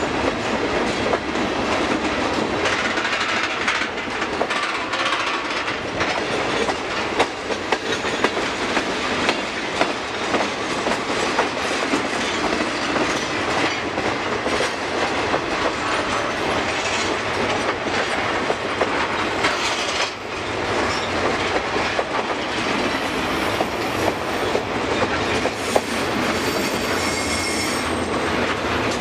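Freight cars rolling past steadily, their steel wheels clacking over the rail joints with a continuous rattle. A thin, high wheel squeal joins in over the last few seconds.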